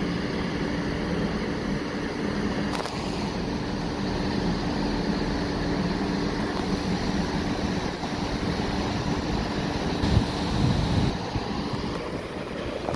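Class 158 diesel multiple unit drawing slowly into a station platform, its underfloor diesel engines droning steadily. Wind buffets the microphone, with a brief click about three seconds in and gusts near the end.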